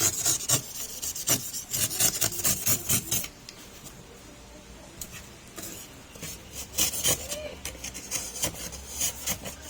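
Knife blade scraping and cutting along the edge of a cured carbon fibre part, trimming off the excess: quick repeated strokes, about three a second, that pause for a few seconds midway and then start again.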